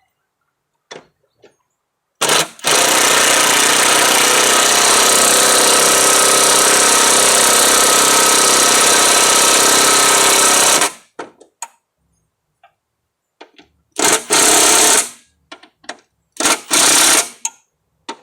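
Impact wrench hammering as it drives bolts on a mower-deck spindle: a short burst, a long steady run of about eight seconds, then two shorter bursts of about a second each near the end.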